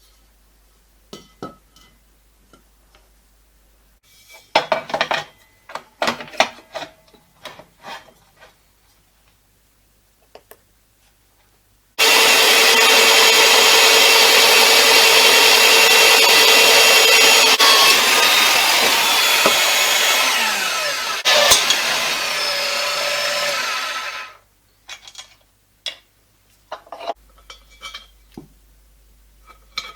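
Scattered clicks and knocks of metal parts being handled, then about twelve seconds of a loud, steady angle grinder working steel, which drops a little in level a couple of seconds before it stops suddenly; more knocks follow.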